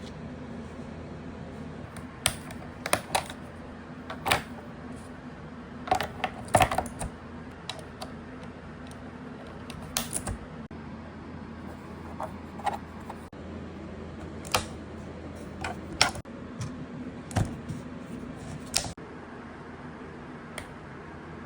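Scattered clicks from a Filco Majestouch Convertible 3 mechanical keyboard with Cherry MX Blue switches, keys pressed singly or a few at a time with pauses between. A steady low hum runs underneath.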